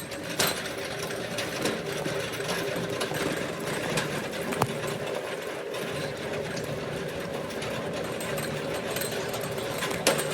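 A steady, continuous mechanical rattle with scattered clicks and knocks, like a loaded stocking cart rolling over a hard store floor.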